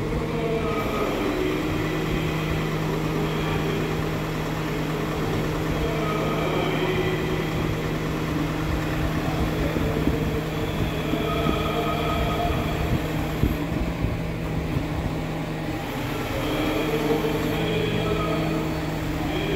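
Engine of a truck-mounted aerial work platform running steadily to power the raised boom: a constant low drone. A faint high whine over it cuts out about 13 seconds in and comes back briefly near the end.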